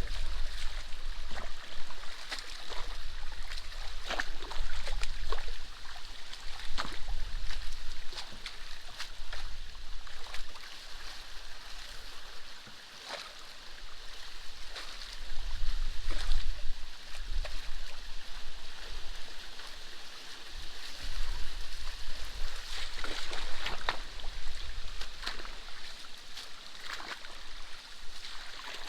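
Water in a drainage canal, running and trickling, with frequent short sharp splashes and knocks scattered through it.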